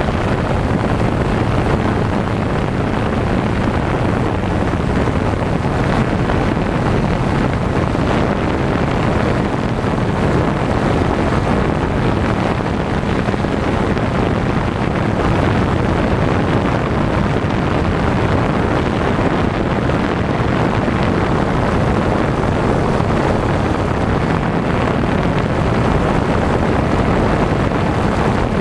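Camera drone's electric motors and propellers running steadily in flight, picked up by its own onboard camera as a constant rushing noise.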